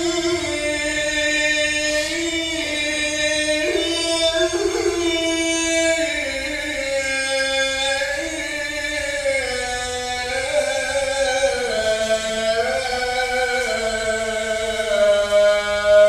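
A muezzin chanting the adhan, the Islamic call to prayer, in one long unbroken phrase: held, ornamented notes that step slowly downward in pitch.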